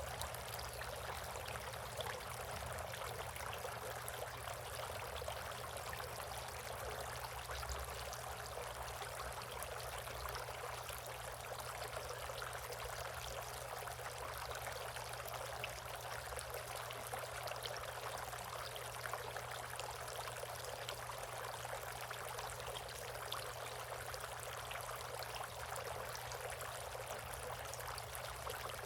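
Water trickling and pouring steadily in a bird bath, an even, unbroken running-water sound.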